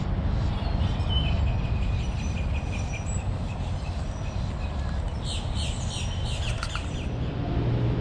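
Small birds chirping in quick series of short notes, in two bouts, over a steady low rumble.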